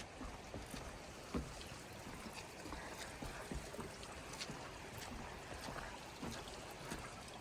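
Steady rush of a river's flowing water, with scattered light footsteps and knocks on the trail.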